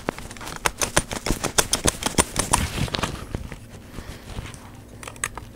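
Quick run of small metal clicks and rattles as a pistol grip is worked off the base of a Hasselblad 500C/M camera, thick for the first three seconds or so, then thinning out.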